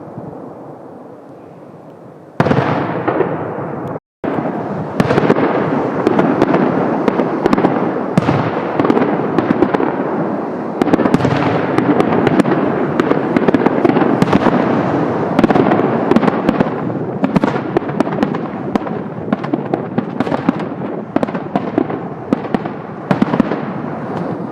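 Fireworks display: after a fading rumble, a sudden loud burst about two seconds in opens a dense barrage of shell bursts and crackle, many bangs overlapping with their echoes. The sound drops out briefly near four seconds.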